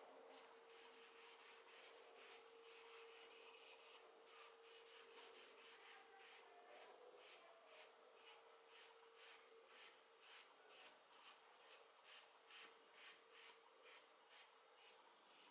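Faint, rhythmic rubbing of a cloth pad over a wooden box's surface, applying shellac button polish to mahogany, at about two strokes a second, with the strokes growing more distinct in the second half.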